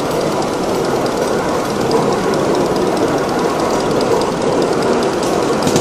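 Miniature ride-on train running along its small-gauge track: steady running noise of the wheels on the rails, with light clicks, a few more of them near the end.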